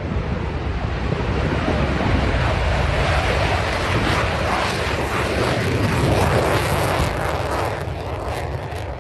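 F-35A fighter's F135 turbofan roaring on takeoff, a dense rush of jet noise that swells as the jet lifts off and passes, loudest about six to seven seconds in, then eases as it climbs away.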